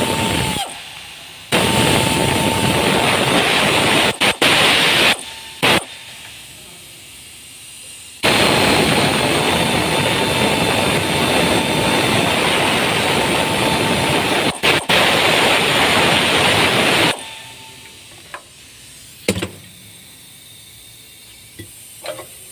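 Compressed-air tool working on the brake assembly, run in several bursts of loud hissing air with a steady whine. It starts and stops abruptly: one run of about three seconds, two short blips, then a run of about nine seconds. Light clicks and knocks follow near the end.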